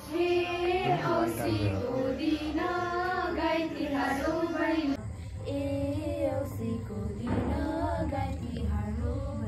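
Girls' and women's voices singing a Nepali Tihar Bhailo song, with an abrupt change in the sound about five seconds in.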